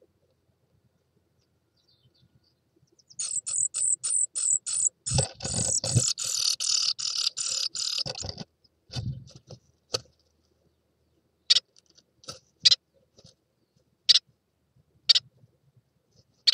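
Tits in a nest box: a quick series of high, thin calls, about five a second, builds into a dense burst of calls with fluttering thumps as a second adult arrives at the nest. Scattered single high calls follow.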